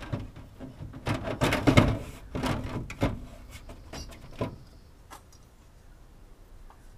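Plastic roof-fan trim frame being handled and pressed against the van's ceiling panel: a string of knocks, taps and rustles for about four seconds, then only faint handling.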